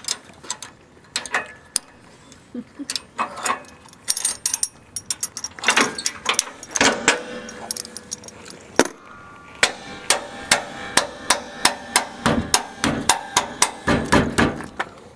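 Metal clicks and knocks from a trailer's square-tube jack and its crank handle being worked by hand. The clicks are irregular at first, then settle into a steady run of about two to three a second in the second half as the jack is cranked.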